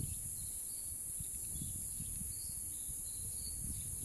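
Steady high-pitched insect chorus, with an irregular low rumble and a few faint chirps underneath.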